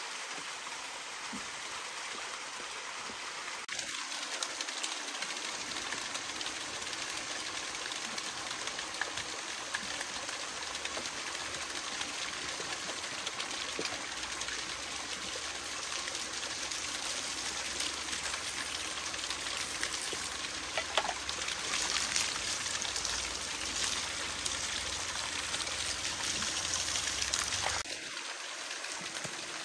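Running water, like a stream, flowing steadily; it grows a little louder in the second half and drops back near the end.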